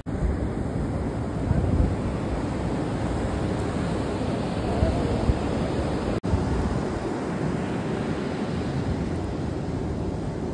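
Rough sea surf rumbling steadily, with wind buffeting the microphone. The sound breaks off for an instant about six seconds in.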